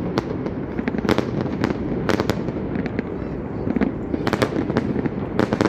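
Fireworks going off: a rapid, irregular string of sharp bangs and crackles coming in clusters, over a continuous low rumble.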